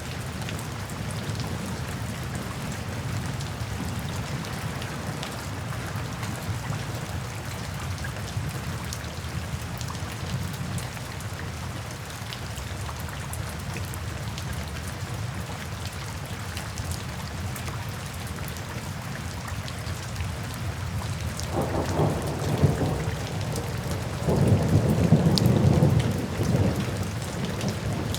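Steady rainfall with dense pattering drops, and about two-thirds of the way through a peal of thunder rumbles in, swelling louder a couple of seconds later before easing off near the end.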